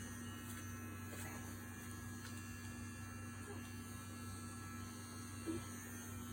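Manscaped Lawn Mower 3.0 cordless electric trimmer running with a steady low hum, with one short click about five and a half seconds in.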